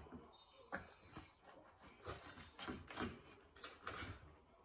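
Faint, irregular clicks and scrapes of table knives and forks against plates while cutting steak.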